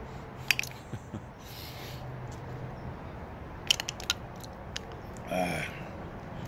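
Mouth sounds of sucking a sour hard candy: scattered wet clicks and smacks, then a quick run of clicks about four seconds in as the candy is spat back into its plastic drum, and a short vocal grunt near the end.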